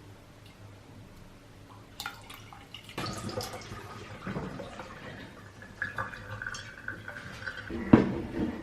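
Water running and dripping in a sink, with scattered light knocks and clinks and a sharper knock near the end.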